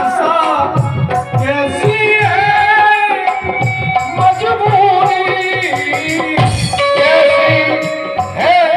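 Male voice singing a ghazal with melismatic held notes, accompanied by a keyboard and a steady percussion rhythm.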